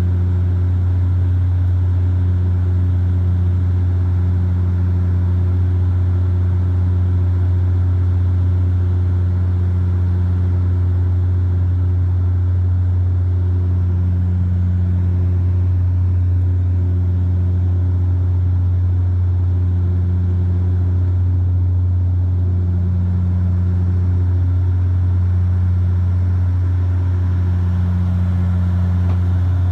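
Cabin drone of a Bombardier Dash 8 Q400 turboprop in flight: a loud, steady, deep propeller and engine hum, with a higher tone above it that swells and fades every couple of seconds.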